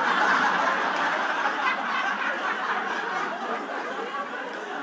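Comedy club audience laughing after a punchline, loudest at the start and slowly dying down.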